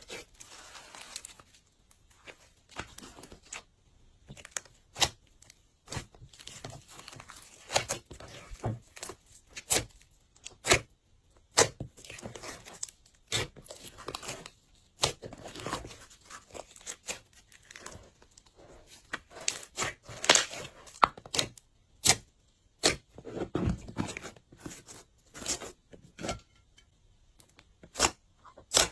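Glossy slime being squished and stretched by hand, giving irregular sticky pops, clicks and tearing sounds, several a second.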